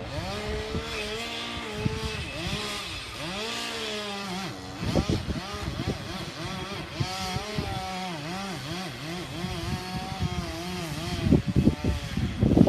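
Chainsaw running under load, its engine note repeatedly dipping and recovering as it works through the cut. Several loud knocks sound near the end.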